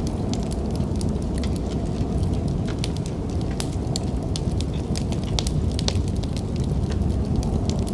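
Wood fire crackling with irregular sharp pops and ticks, over a steady low rumble of snowstorm wind.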